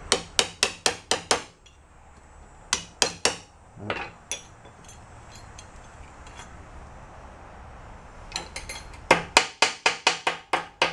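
Light hammer taps on a metal seal ring, seating it on top of a leather seal in a bearing housing. The taps come in quick runs with pauses between, a long fast run near the end.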